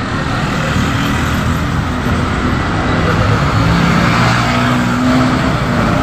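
Road traffic noise while moving along a busy street: a steady rumble of engines and tyres that grows slightly louder about halfway through.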